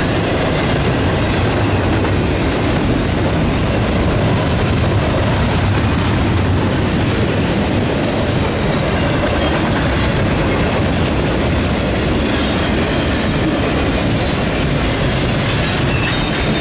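CSX double-stack intermodal train's container well cars rolling past: steady, loud noise of steel wheels running on the rails.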